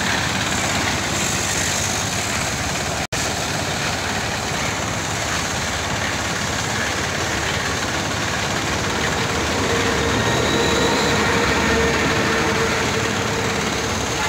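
Engine of a small drum-type concrete mixer running steadily, a loud continuous noise that drops out for an instant about three seconds in.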